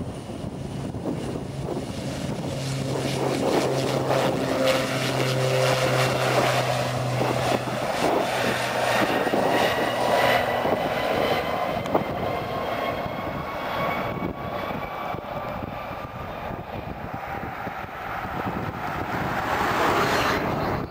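Twin-engine turboprop aircraft at takeoff power on its takeoff roll: a steady engine and propeller drone with a high whine that rises slowly in pitch. A low hum fades out about eight seconds in.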